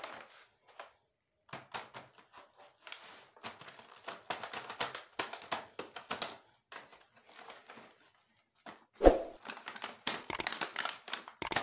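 Toy packaging being handled and unwrapped: irregular crinkling and rustling crackles, with one louder knock about nine seconds in.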